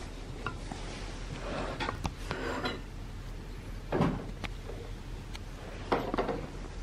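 Scattered small clinks and knocks of a glass and other objects being handled on a wooden table, the loudest about four seconds in and again near six seconds.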